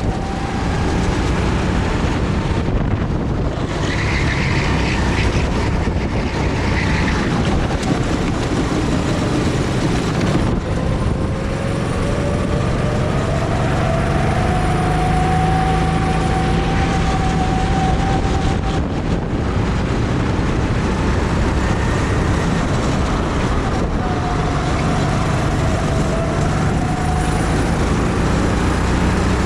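Go-kart engines running, their pitch slowly rising and falling, over a steady rushing noise.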